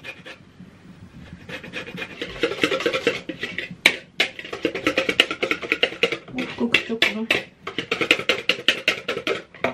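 A dog panting rapidly and rhythmically. It starts about two seconds in, with a short break about three-quarters of the way through.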